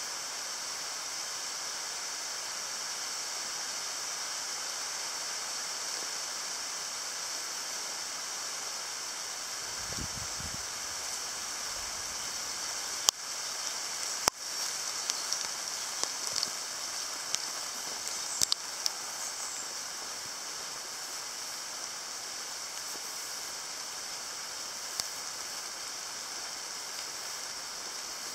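Steady, high-pitched outdoor hiss, with a faint low rumble about ten seconds in and a few sharp clicks a little later.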